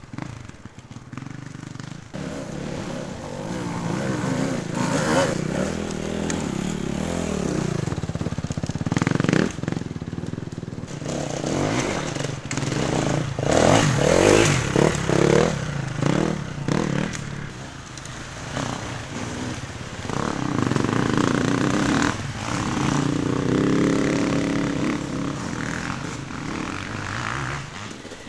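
Enduro dirt bike engines revving as several bikes ride past one after another, the engine pitch rising and falling with the throttle.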